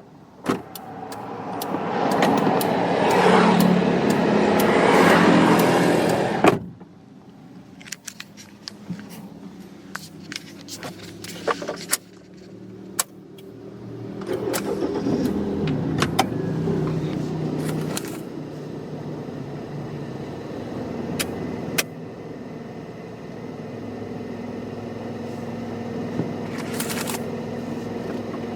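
Inside a moving car: engine and road noise that swells loudly for the first few seconds, drops off suddenly, then rises and settles into a steady drone, with many small clicks and rattles scattered through.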